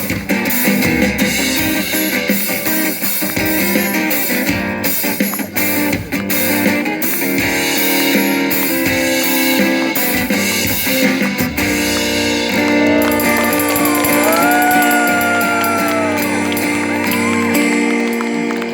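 Live band playing an instrumental passage with guitar and drums; about two-thirds of the way through it settles into held chords with a sliding guitar melody on top.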